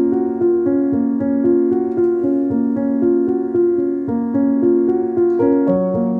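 Background keyboard music: a gentle melody of held piano-like notes.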